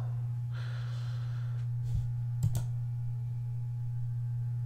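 A steady low electrical hum, with a soft hiss about half a second in and a couple of sharp computer-mouse clicks about two and a half seconds in.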